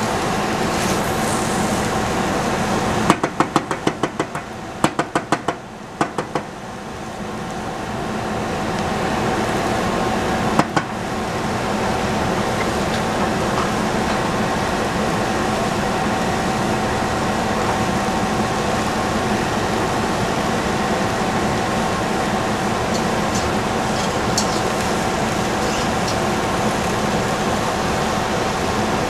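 Steady hum and hiss of a kitchen as vegetables cook in a saucepan on a gas stove. About three seconds in comes a quick run of a dozen or so sharp taps, and near ten seconds a single knock.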